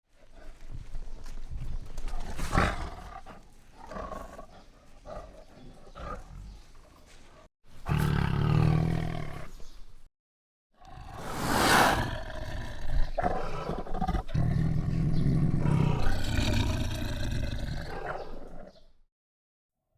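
Tiger growling and roaring, several recordings spliced with brief dead-silent gaps: quieter rumbling growls for the first seven seconds or so, a loud roar about eight seconds in, and a longer, louder run of roaring from about eleven seconds that stops near the end.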